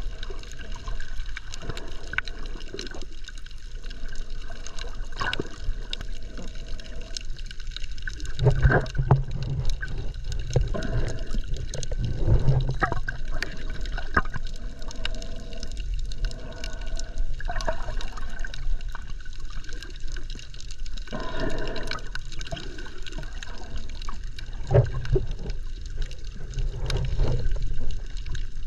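Underwater sound from a GoPro just below the surface in shallow rocky surf: muffled sloshing and gurgling of water surging over the rocks, with low rumbling surges that swell louder several times.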